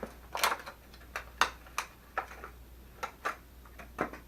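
About a dozen sharp, irregular clicks and snaps as a fishing jig is worked out of its packaging by hand.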